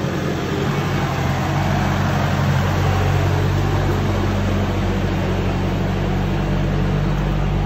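Engine of a compact municipal snow plough carrying a salt spreader, running steadily up close as it works: a low, even engine hum under a dense rushing noise.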